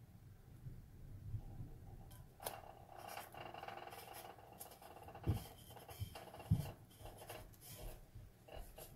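Quiet handling sounds: fingers rubbing and pressing a vinyl disc against a stainless steel tumbler, with a few soft knocks as the tumbler is turned in the hands and set down.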